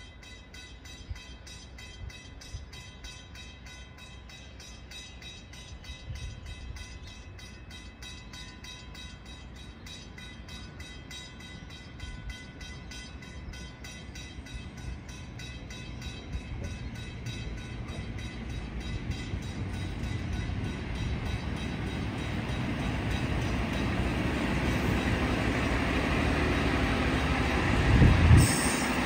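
NSW TrainLink Endeavour diesel railcar set approaching and passing through a station. Its engine and wheel rumble grow steadily louder, and a loud low thump comes near the end as the cars pass close by.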